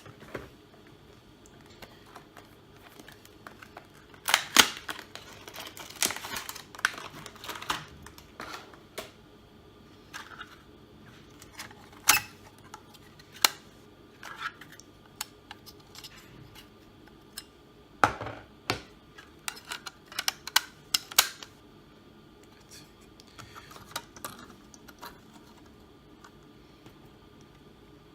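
Scattered sharp clicks and taps of a screwdriver and small metal parts as the hard-drive bracket screws are taken out of a laptop, with a busy run of clicks about four to eight seconds in and another about eighteen to twenty-one seconds in.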